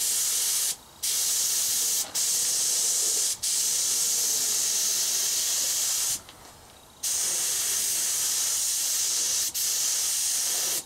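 Neiko 3.0 gravity-feed spray gun hissing with compressed air as it sprays thick high-build polyester primer. The hiss runs in passes that stop briefly several times, with a longer pause about six seconds in.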